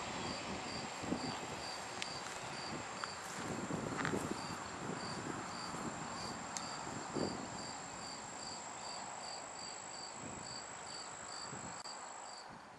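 Insects calling, a steady high buzz and a pulsed chirp about twice a second, over the fading rumble of a departing freight train's wheels on the rails, with a few clanks. The steady buzz stops just before the end.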